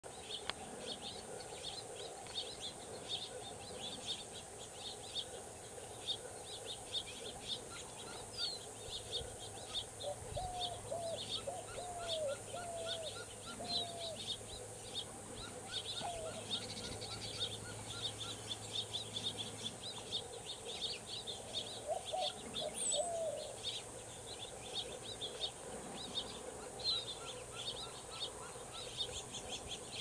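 Birds calling: rapid high chipping notes throughout, with short series of lower slurred whistled notes about ten seconds in and again about twenty-two seconds in.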